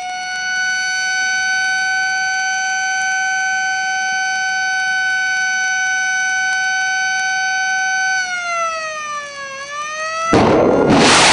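Shipboard warning siren sounding a steady tone, then winding down in pitch about eight seconds in. Just after ten seconds in it is cut off by the loud, sudden blast of a Tomahawk cruise missile's solid rocket booster firing out of the destroyer's vertical launch cells.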